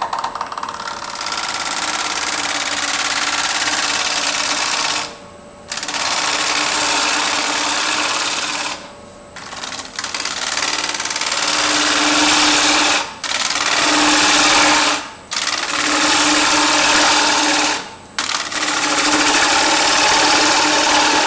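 A turning tool is cutting the inside of a spinning wooden bowl on a wood lathe, a loud, steady hissing shear of wood being peeled away. It comes in about six long passes of a few seconds each. Between them are brief pauses where only the lathe's faint whine remains. These are hollowing cuts, bringing the bowl's wall and bottom down toward final thickness.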